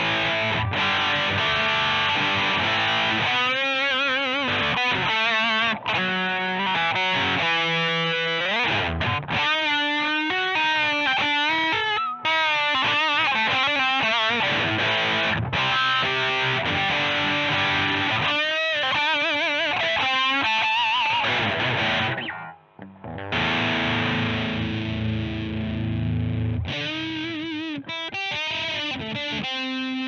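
Electric guitar played through an iSet Distortion mini pedal set for heavy, high-gain metal tones. It plays thick distorted riffs and chords, with single-note lines bent and shaken with wide vibrato. There is a brief stop about three quarters of the way through.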